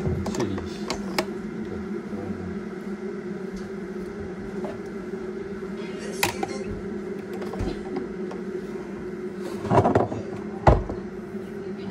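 A steady low hum with a fainter one above it, overlaid by rustling and a few knocks; the loudest knocks come near the end.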